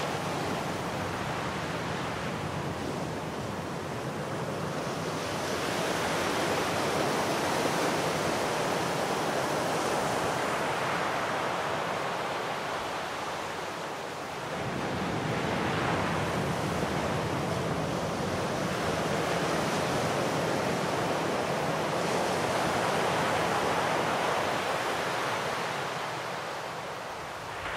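Sea waves washing onto a shore, the surf noise swelling and easing in slow surges every several seconds.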